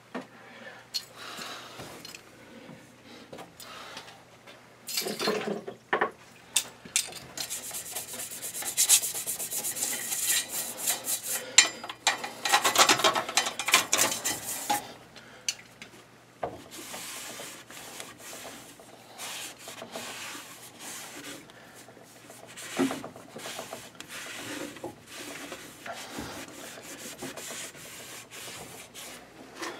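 A cloth rag rubbing and wiping around the inside of a condensing boiler's metal heat exchanger, clearing out loosened debris after scrubbing. It is an irregular scraping and swishing with small knocks, busiest and loudest about a third of the way in.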